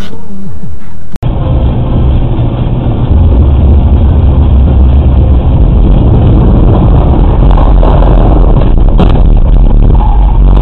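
Loud, steady rumble of a car driving fast on a wet motorway, heard through a dashcam inside the car: engine and tyre noise cutting in abruptly about a second in. A few brief sharp knocks come near the end.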